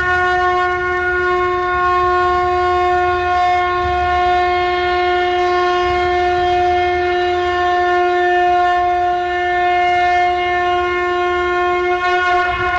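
Conch shell (shankha) blown in one long, steady note held for about twelve seconds.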